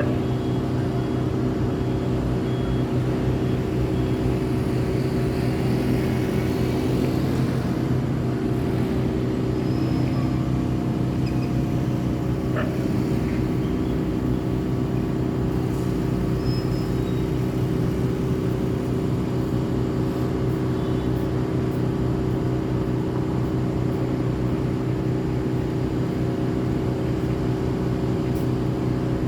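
City street traffic: vehicle engines running in a steady, unbroken low hum, with a few brief high-pitched chirps.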